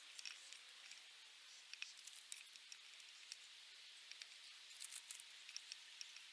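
Faint scattered clicks and rubbery rustling of a stainless steel chain being pushed link by link into a bicycle inner tube, over near silence.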